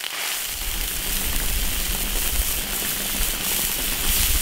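Liquid boiling and sizzling hard in a large iron wok. A low rumble joins it about half a second in.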